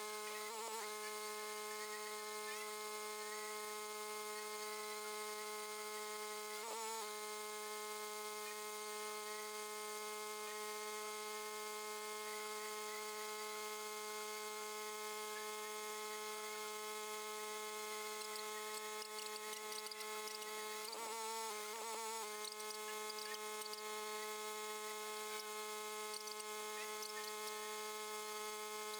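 A steady electrical-sounding hum made of several even tones, wavering briefly a few times.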